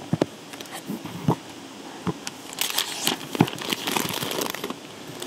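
Thin plastic wrapping crinkling as it is handled. A few sharp clicks and knocks come first, and the crinkling thickens about halfway through.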